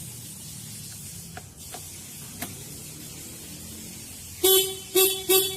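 Yamaha Lexi 125 scooter's electric horn giving three short beeps near the end, after a few faint clicks. The horn works again now that its broken wire has been rejoined.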